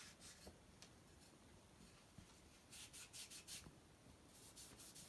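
Faint rubbing of a cotton towel on a wooden spoon as mineral oil is wiped into the wood, in short runs of quick strokes, the clearest about three seconds in.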